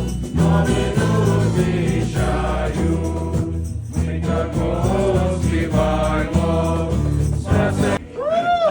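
Youth choir singing a Christmas carol over steady low instrumental accompaniment. The music stops near the end and a single person's voice is heard.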